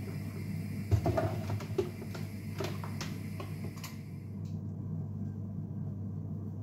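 Kitchen handling sounds: light clicks and knocks of items being handled on a counter, with a sharp click about a second in, over a steady low hum.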